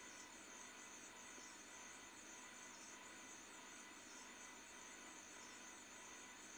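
Near silence, with the faint steady high-pitched trill of crickets.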